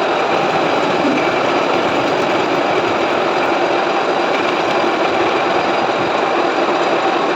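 Metal lathe running steadily while facing off the cut end of a shaft blank.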